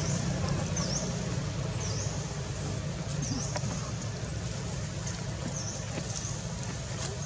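Outdoor ambience: a steady low drone like a distant motor, with a short, high chirp repeating every second or two.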